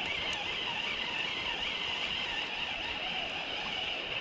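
Spinning reel's drag buzzing steadily as a hooked spring Chinook salmon runs and pulls line off, cutting off suddenly near the end. The river's water noise sits underneath.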